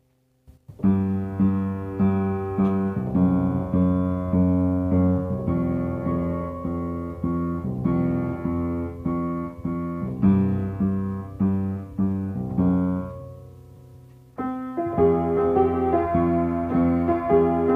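Solo piano playing a slow piece of repeated chords, struck about twice a second over held bass notes. The playing starts about a second in, dies away near fourteen seconds, then comes back louder.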